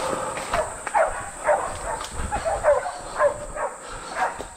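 Hunting dogs barking over and over at a bailed feral boar, about two barks a second, each bark short and dropping in pitch.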